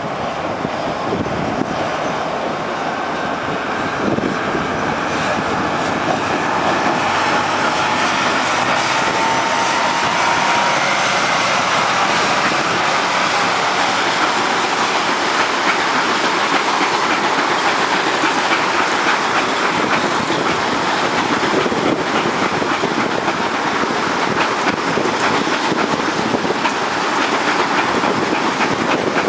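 A cane train's long rake of empty sugar-cane bins, drawn by a diesel locomotive, rolling past on narrow-gauge track, its wheels clacking steadily over the rail joints and growing louder over the first dozen seconds. A thin wheel squeal rises briefly about ten seconds in.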